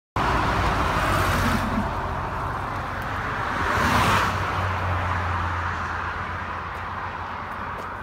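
Motorway traffic passing close by: two vehicles rush past, about a second and a half and about four seconds in, over a steady low rumble.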